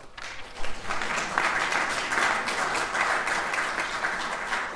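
Audience applauding, building up within the first second and then holding steady.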